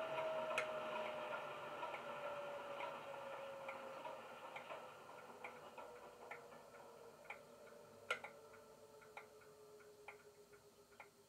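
Hornby Class 31 model's Legomanbiffo DCC diesel sound, played through its small EM1 speaker: the engine winding down, its whine slowly falling in pitch as the running noise fades away, with irregular ticks scattered through it.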